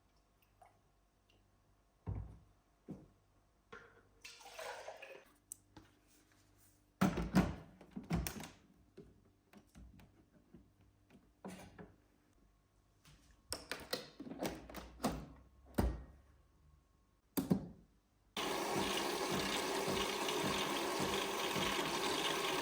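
A string of small clicks and knocks from things being handled, then a water tap running steadily for about five seconds, turned on abruptly near the end.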